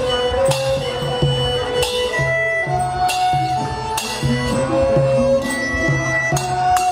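Traditional music: a held melody line over a steady low drum beat, with sharp percussion strikes about every second and a quarter.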